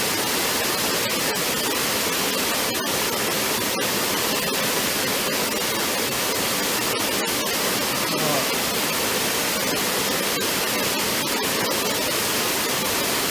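Steady rushing of a waterfall, even and unbroken throughout.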